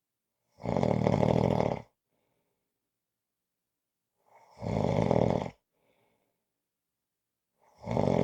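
A person snoring: three loud snores, each a little over a second long and about three and a half seconds apart, each followed by a faint softer breath sound. The third snore starts near the end.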